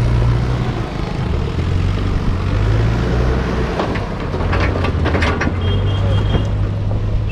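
A vehicle engine runs steadily with a low drone, as on a drive along a road. There is some rattling about four to five seconds in.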